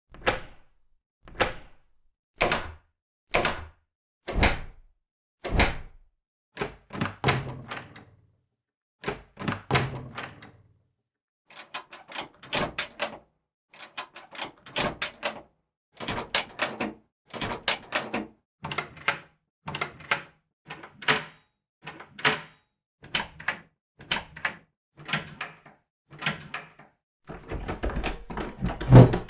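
A series of door sounds: sharp knocks and thuds, about one a second at first, then quicker clusters of clacks and rattles like latches and panels being worked, with the heaviest thud near the end.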